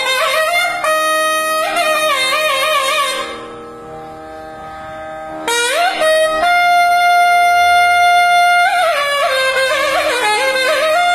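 Nadaswaram playing a solo alapana in raga Sahana: ornamented phrases with quickly wavering pitch, a lull of about two seconds, then a rising glide into a long held note and more wavering phrases near the end.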